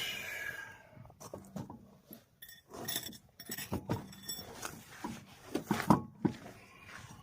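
Metal tools and parts clinking and knocking irregularly during front-wheel hub repair work, with a short squeak at the start.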